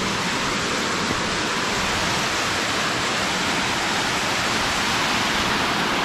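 Steady rush of falling water from a small waterfall.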